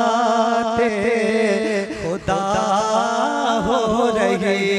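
A man singing a naat into a microphone, drawing out long wordless phrases with a wavering, ornamented melody. A steady low note sounds underneath.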